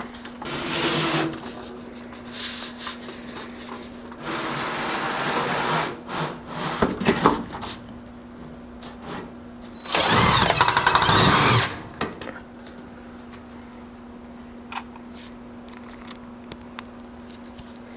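Cordless drill-driver running screws into sheet-metal stovepipe in three bursts, the longest and loudest about ten seconds in, with clicks and rattles of handling between them. A steady low hum runs underneath.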